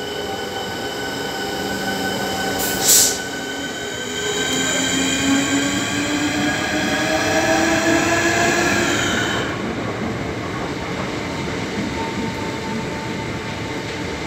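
Class 465 Networker electric multiple unit pulling away: a brief loud hiss about three seconds in, then the traction motors whine in several tones that rise in pitch as it accelerates. About nine seconds in the whine stops and the steady rushing noise of the carriages rolling past remains.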